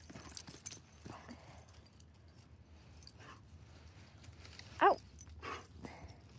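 Dog giving one short whine that rises and falls, about five seconds in. A few sharp clicks and cracks sound near the start, from dogs chewing sticks.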